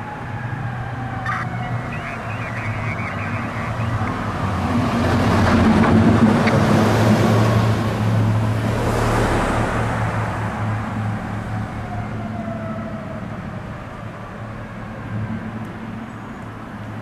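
Tower ladder fire truck responding: its engine drones steadily and swells loudest about halfway through as it pulls up the street, with a siren wailing slowly up and down over street traffic.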